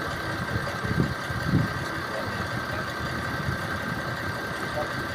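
An engine running steadily at idle, with a thin steady whine over its low rumble and two louder low bumps between one and two seconds in.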